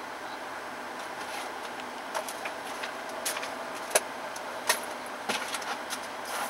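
Steady background hum broken by a scattered run of sharp clicks and light metallic clinks, starting about two seconds in, the loudest near the middle.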